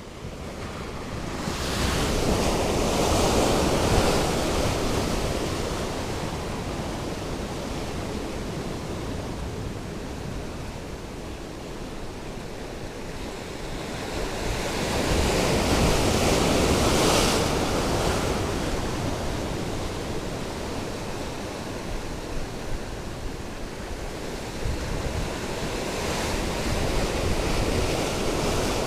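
Sea surf washing against the shore, a steady rush that swells into two louder surges, one a few seconds in and one about halfway.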